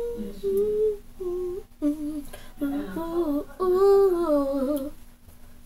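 A young girl singing a wordless tune in short held notes that step downward in pitch, the longest one near the end wavering.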